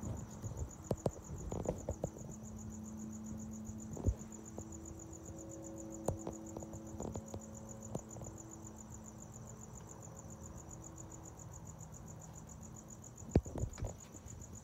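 Crickets chirping in a steady, fast, high-pitched pulsing trill, over a faint low hum, with a few short knocks scattered through, the loudest about four seconds in and near the end.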